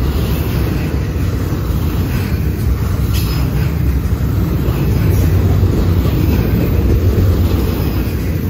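Double-stack intermodal container freight train rolling past, its well cars' steel wheels making a loud, steady low rumble on the rails, with a faint click about three seconds in.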